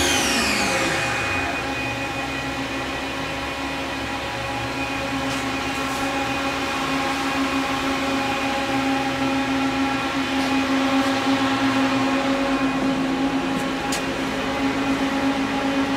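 Steady electrical and fan hum of a Fadal VMC 15XT CNC vertical machining center, heard with its electrical cabinet open. Several constant tones sit over an even whir. A machine whine falls in pitch and dies away in about the first second, and a few faint clicks come later.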